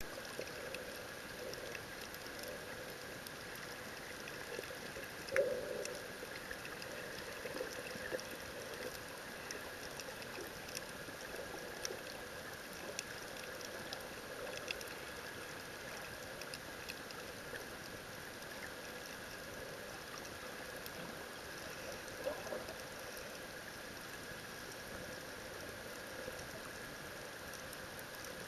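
Underwater ambient noise recorded by the camera below the surface: a steady hiss with scattered faint ticks and crackles. A louder bump comes about five seconds in, and a smaller one later.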